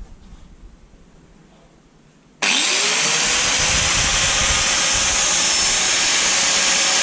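Handheld angle grinder switched on about two and a half seconds in: the motor spins up with a quickly rising whine, then runs steadily at full speed with a loud high-pitched whine.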